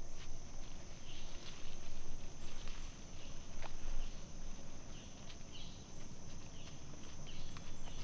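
Insects droning in one steady high buzz, with a short chirp repeating about once a second, over irregular low rustling and soft steps in the leaf litter.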